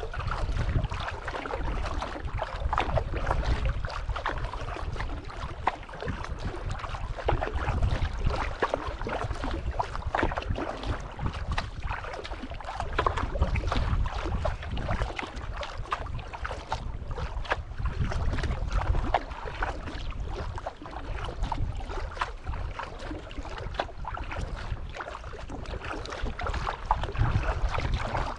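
Water swishing and lapping along a moving sea kayak, with wind rumbling steadily on the microphone.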